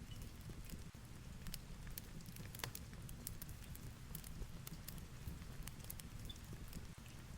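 Fireplace crackling, with irregular sharp pops scattered a few per second, over a steady low rumble of heavy rain and wind.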